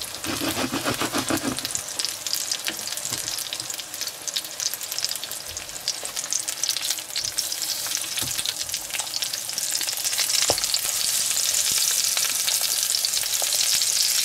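Slices of onion Leberkäse frying in clarified butter (Butterschmalz) in a nonstick pan: a steady crackling sizzle. An orange plastic slotted spatula scrapes and turns the slices, adding a few light clicks. The sizzle grows louder toward the end.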